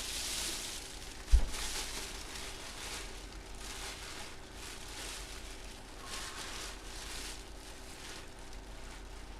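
Handling noises: soft rustling of packaging in several swells, with one sharp thump a little over a second in, over a steady low hum.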